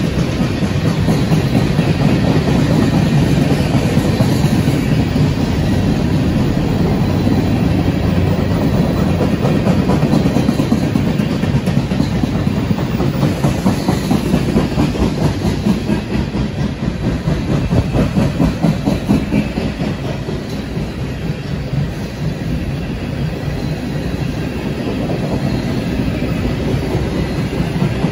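CSX freight train of tank cars rolling past, steel wheels clicking over rail joints in a steady, rhythmic clatter over a continuous rumble.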